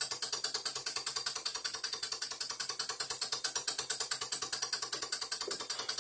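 PM Research No. 3 model steam engine running steadily with a rapid, even ticking beat, belt-driving a Hamilton #1 sensitive drill press.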